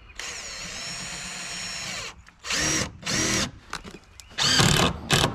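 Power drill driving screws into wood: one steady run of about two seconds, then four short bursts, the motor pitch dipping and picking up again as each screw seats.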